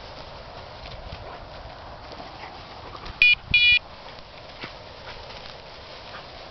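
Two short electronic beeps about a third of a second apart, the second a little longer and the loudest thing here, over faint steady rustling and light scattered ticks.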